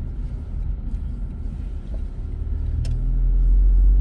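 Car driving, heard from inside the cabin: a steady low rumble of engine and road noise that grows louder about three seconds in, with a single click just before.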